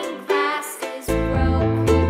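Background music for children with a steady run of notes; the bass drops out near the start and comes back in about a second in.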